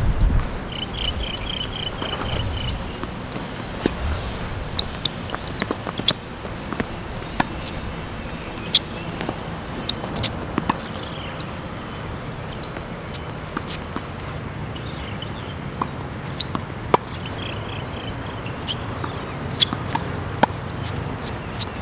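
Tennis balls struck by rackets and bouncing on a hard court during rallies: sharp pops every second or two, with footsteps. A short rapid chirping comes twice, about a second in and near the end.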